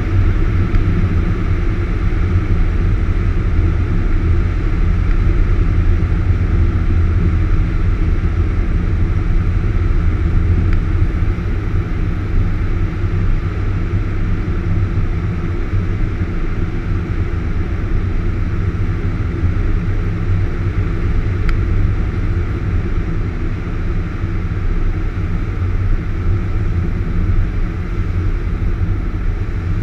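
Cessna 172's piston engine and propeller droning steadily, heard from inside the cockpit with airflow noise on final approach to landing. The drone eases slightly about a third of the way in.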